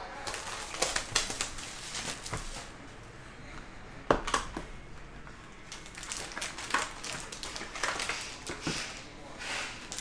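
Shrink-wrap cellophane being torn off a cardboard trading-card box, then the box opened and its foil-wrapped card packs pulled out and stacked. The sound is crinkling and crackling plastic with sharp clicks and snaps, the loudest about four seconds in.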